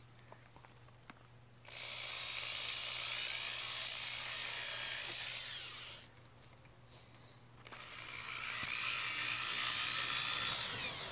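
Power drill with a 1/8-inch bit drilling out two small holes in the side of the car's front bumper, once, then again. Each run lasts about four seconds, and the second builds up more gradually.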